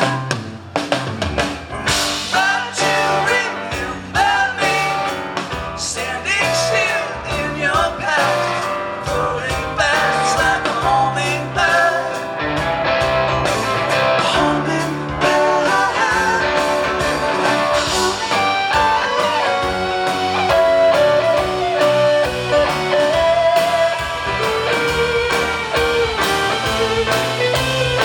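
Rock band playing live: an instrumental passage with an electric guitar line bending and wavering over drums and bass.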